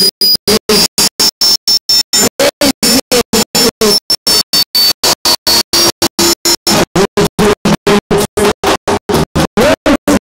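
Live stage music, singers with a band of drums and keyboards, chopped by rapid dropouts: the sound cuts out about five times a second in an even stutter.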